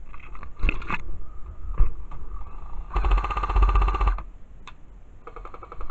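Airsoft gun firing bursts on full auto: a short burst early, a longer and louder burst of about a second from halfway, and another burst near the end, with a single sharp knock before two seconds.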